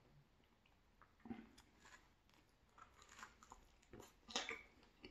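Faint biting and chewing of a slice of thin-crust cheese pizza, with the loudest bite about four seconds in.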